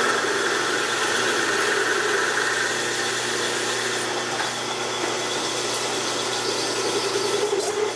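Machine spindle driving a 9/16-inch roughing end mill as it plunges into a metal plate, boring the tap hole for a 5/8-18 thread in place of a drill. Steady cutting and motor noise, with a brighter hiss for the first few seconds that then eases.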